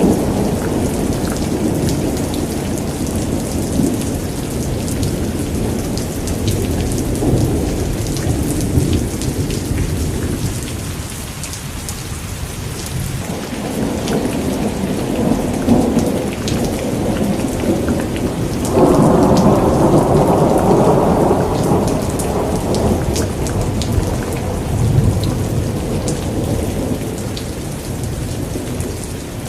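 Steady heavy rain with thunder rumbling throughout, and a sudden louder burst of thunder about two-thirds of the way through.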